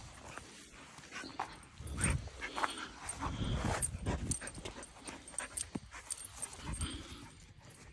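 Berniedoodle whimpering in short, scattered bursts, mixed with irregular scuffling noise.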